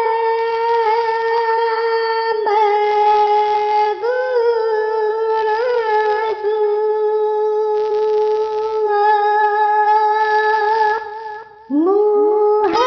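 Wordless vocal music: a single voice humming or chanting long, steady held notes, sliding up into each new note. It drops away briefly near the end, then returns with a rising slide.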